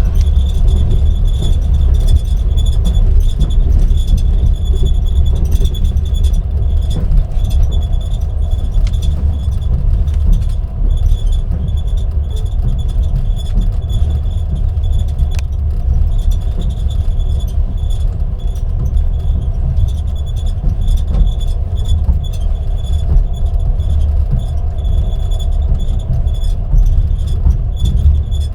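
Ceiling panels of a Russian Railways passenger carriage creaking and squeaking over and over with a high pitch while the train runs, over the train's loud steady low rumble and scattered small clicks.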